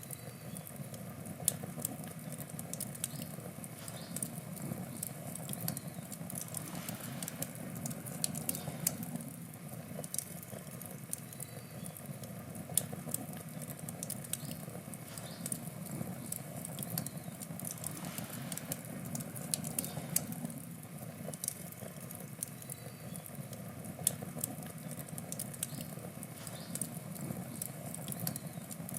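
Wood fire burning: a steady low rush of flames with frequent small, sharp crackles and pops from the burning wood, several a second at irregular intervals.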